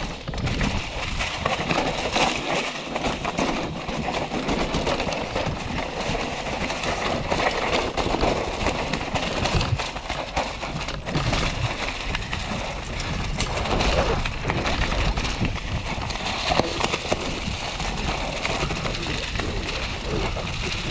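Mountain bike rolling fast down a rough dirt trail: tyres on dirt and leaf litter, with the bike rattling and clattering over bumps in quick, irregular knocks.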